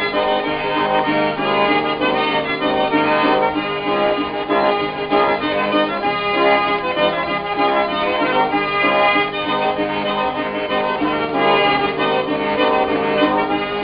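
Instrumental background music led by an accordion, with sustained chords and melody.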